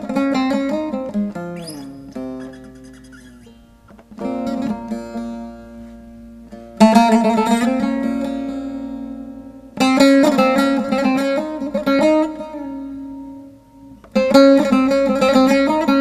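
Instrumental background music on a plucked string instrument: slow phrases, each opening with a strongly struck chord or note that rings and fades, with a sliding note near the start.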